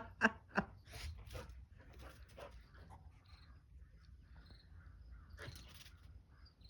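Dogs at play: a quick run of short, sharp dog sounds in the first second or so, then fainter scattered ones and another brief burst later.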